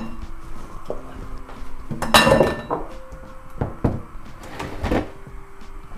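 Dishes and utensils clattering as they are handled and put away at a kitchen sink: a sharp ringing clink about two seconds in, the loudest, then a few lighter knocks.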